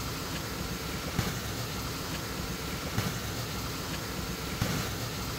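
Micro-hydro Pelton wheel and its generator running steadily: a continuous rush of water with a machine hum, and a few faint knocks about a second, three seconds and four and a half seconds in.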